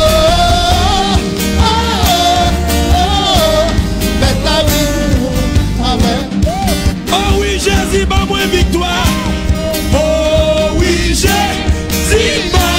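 Live band playing an upbeat worship song: electric bass and drum kit under a melody line that bends in pitch.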